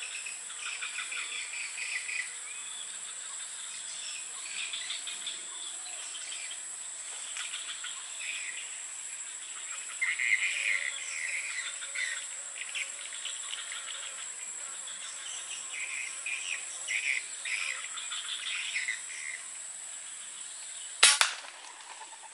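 Steady high-pitched insect drone with repeated bursts of chirping, and a single sharp gunshot near the end, the loudest sound.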